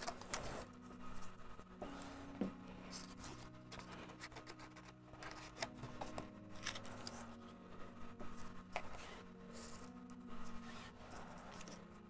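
Paper and card rustling with light taps and scrapes as cut paper flames are handled and pressed into a cardboard box, over faint soft background music.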